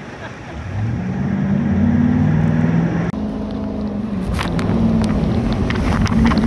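Jet boat engine revving up about a second in, then running steadily at speed under the rush of water. Spray splashes and crackles against the hull in the second half.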